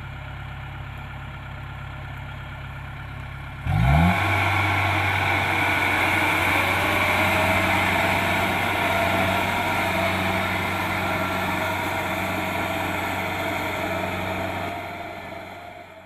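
Kubota DC-70 Plus combine harvester's diesel engine running at a low hum, then about four seconds in it revs up quickly and runs loud and steady at working speed with the rushing noise of its harvesting machinery. The sound fades out near the end.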